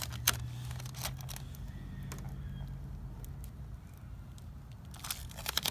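Scattered light clicks and crinkles from handling small plastic stick-on letters and their adhesive backing, with a quicker run of clicks near the end. A faint steady low hum lies under the first few seconds.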